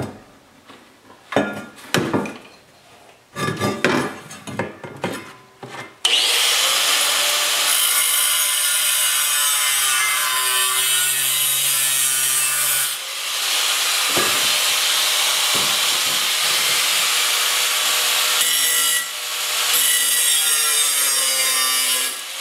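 A few knocks, then about six seconds in an angle grinder's thin cut-off wheel bites into a sheet-steel patch panel and cuts steadily with a loud, hissing screech, easing off briefly twice as the wheel is lifted and set back in the cut.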